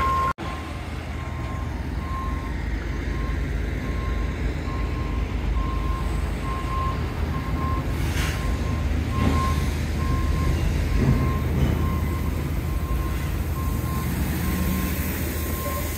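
A heavy truck's reversing alarm beeping over and over, over a steady low rumble of truck engines running.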